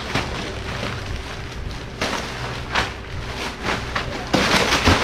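Packing tape being peeled off a cardboard box, crackling and rustling in irregular bursts, with a louder stretch of crackle near the end.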